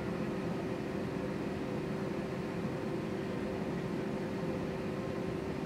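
Steady cabin drone of an Airbus A320-family airliner taxiing with its jet engines at idle, with a constant hum running through the rushing noise.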